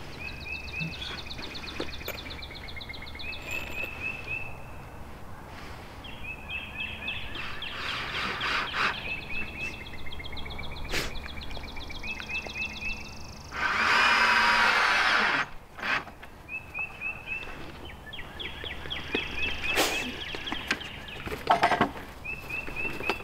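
A power tool runs for about two seconds partway through, starting and stopping abruptly, while birds keep calling with short repeated chirps. A few sharp knocks come near the end.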